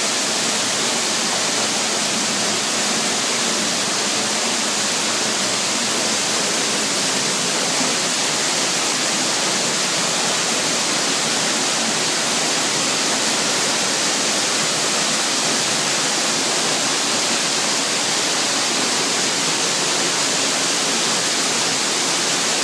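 A small waterfall: a steady rush of falling water, an even bright hiss with little low rumble.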